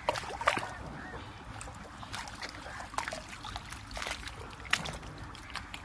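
Long-handled hoe chopping into and dragging wet mud in a shallow muddy water channel: irregular wet strikes and scrapes with splashing and sloshing water, several in quick succession.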